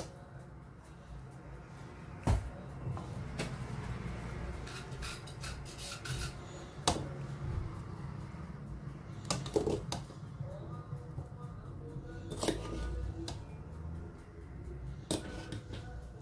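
A utensil scraping and tapping against a glass baking dish as fusilli pasta is spread over the sauce, with several sharp knocks spaced a few seconds apart. Faint music plays underneath.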